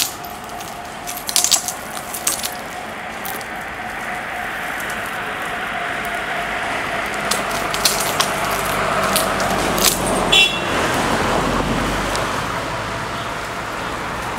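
Self-balancing scooter rolling over broken glass on wet pavement: scattered sharp crunches and clinks of glass shards under its tyres, thickest in the second half, over a steady whine and tyre hiss.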